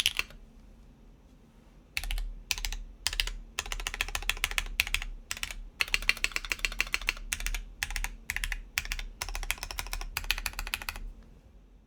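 Typing on a gasket-mounted mechanical keyboard with lubed linear Cherry MX Black switches on a UHMWPE plate under GMK keycaps: rapid runs of keystrokes broken by short pauses. It begins after a pause of about two seconds and stops about a second before the end.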